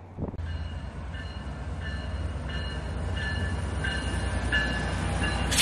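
A North Carolina Amtrak passenger train's diesel locomotive passing close by, with a steady low engine rumble. A bell rings over it, roughly every two-thirds of a second.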